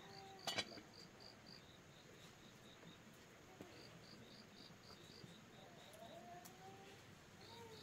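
Insects chirping outdoors in a steady high-pitched pulse, about four chirps a second, with a few lower calls rising and falling underneath. A single sharp click about half a second in.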